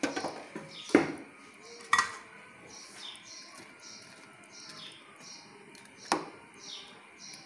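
A steel ladle clanks against the side of a metal cooking pot while stirring pakoras into kadhi. There are four sharp knocks: near the start, at about one second, at about two seconds and near the end. A bird chirps over and over in the background.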